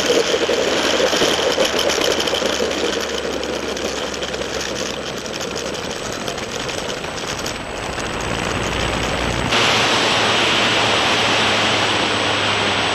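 Motor and propeller of a radio-controlled T-28 model plane, recorded by a camera mounted on the plane, with wind rushing over the microphone as it runs low along the runway. About three-quarters of the way through the sound changes suddenly to a steadier, hissier noise with a low hum.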